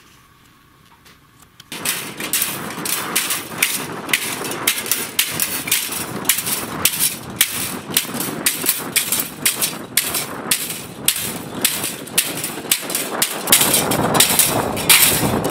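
Small decorative farm windmill with a wrecked rotor turning and clattering, a quick irregular run of knocks, several a second, that starts about two seconds in: its yaw bearing and rotor bearing have failed.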